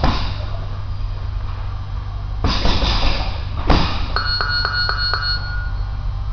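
Gloved punches landing on a hanging heavy bag, with one sharp hit a little past halfway. The bag's metal chain rattles and clinks, ringing, for about a second after it, over a steady low hum.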